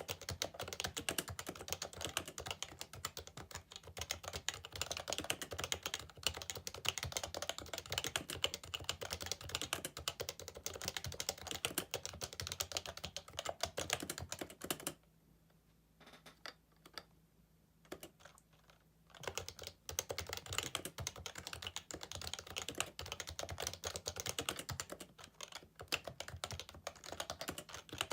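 Fast, continuous typing on a Happy Hacking Keyboard Professional 2, its Topre capacitive keys giving rapid soft clacks. About halfway through the typing stops for roughly four seconds, with only a few single keystrokes, then carries on at the same pace.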